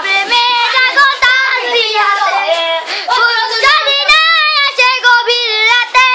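A young boy singing alone, a melody of held, wavering notes with short breaths between phrases.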